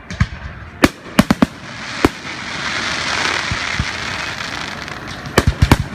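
Fireworks display: sharp bangs of bursting shells, several in quick succession in the first two seconds. A longer crackling rush swells in the middle, and a rapid cluster of bangs comes near the end.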